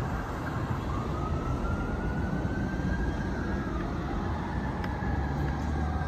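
Distant fire engine siren wailing, its tones gliding slowly up and down in pitch, over the low rumble of traffic idling at an intersection.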